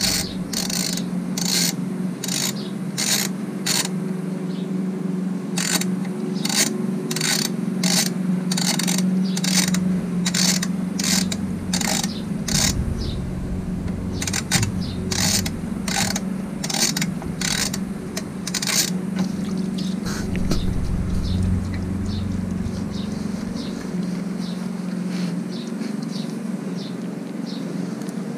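Ratchet wrench working the oil sump plug out of the Suzuki DR650 engine in short rasping strokes, about two a second, which stop about two-thirds of the way through. A steady low hum runs underneath.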